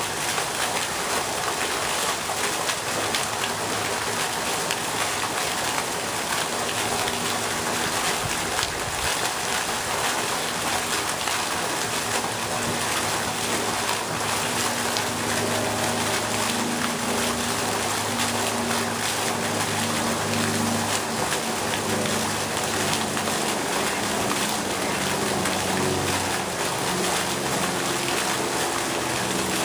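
Pond fountain's vertical water jet falling back onto the pond surface: a steady hiss and patter of splashing water.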